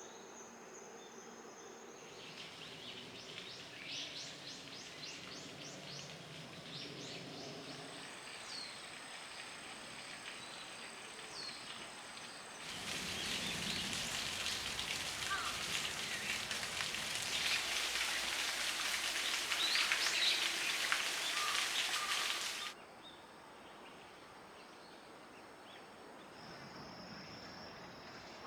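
Insects trilling steadily with birds chirping now and then. About a third of the way in, the sound cuts to roughly ten seconds of louder, steady rushing of falling water, which stops abruptly and gives way to quieter insect trilling.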